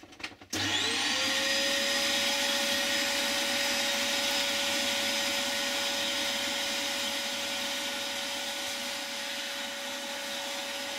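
Vacuum cleaner switched on about half a second in, its motor whine rising quickly to a steady pitch, then running steadily with a constant rushing hiss as it sucks up loose model-railway ballast grit.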